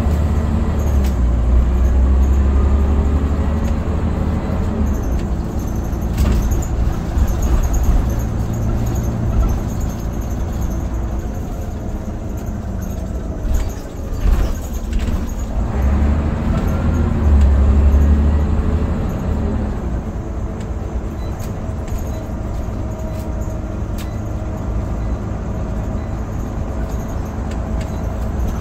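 Scania OmniCity single-deck bus's diesel engine and drivetrain, heard from inside the saloon while the bus is under way. The engine swells louder about two seconds in and again about seventeen seconds in, with a few knocks and rattles from the body.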